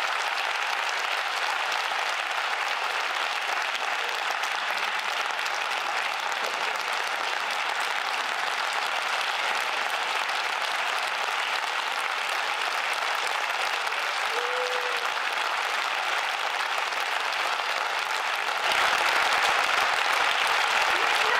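Theatre audience applauding steadily, getting louder near the end.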